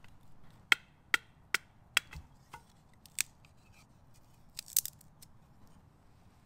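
Small bushcraft knife shaving thin curls down a split stick of dry, dead Douglas fir to make a feather stick. Six crisp strokes come about one every half second, then a quick cluster of two or three a little past the middle.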